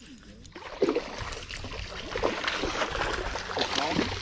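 Irregular splashing and sloshing of creek water as a hooked spotted bass is fought and brought in, starting about half a second in and growing busier.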